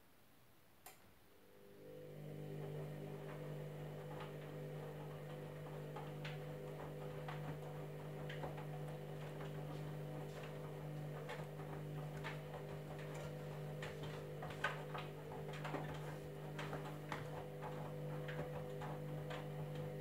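Candy Grand'O Vita front-loading washing machine's motor turning the drum in a wash tumble: a steady hum starts about a second and a half in and stops abruptly near the end. Irregular light clicks and taps sound over it throughout.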